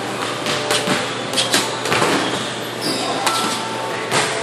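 Boxing gloves striking focus mitts: about ten sharp slaps, several in quick pairs, with a pause about halfway through.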